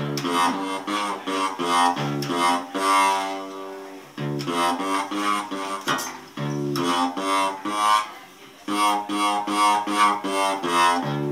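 Intendor No. 10, a homemade six-string fretless guitar, plucked by hand in a run of single notes that ring and fade. The notes come in phrases, with brief gaps about four, six and eight seconds in.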